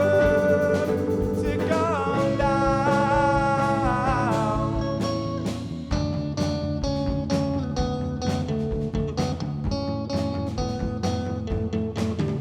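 A song: a sung melody over guitar for the first few seconds, then an instrumental passage of strummed guitar with a steady beat from about halfway through.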